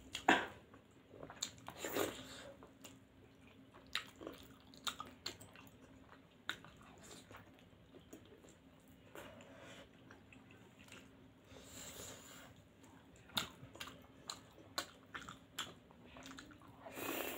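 Close-miked chewing and biting of paneer momo and pasta, with irregular short mouth clicks and lip smacks.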